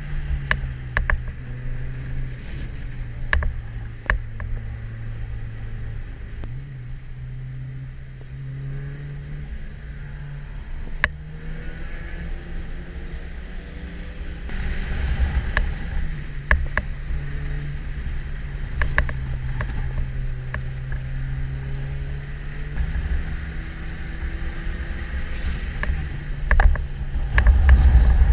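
Mazda2's 1.5-litre four-cylinder engine heard from inside the cabin at speed on a wet track, droning at fairly steady revs that shift now and then, over a low road and tyre rumble. Sharp rattling clicks come through at intervals, and the rumble grows louder near the end.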